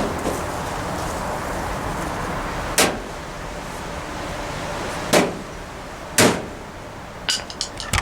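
Sharp knocks from a barbecue grill door and its newly fitted handle being worked: three loud ones about 3, 5 and 6 seconds in, then a quick run of lighter clicks near the end, over a steady background hiss.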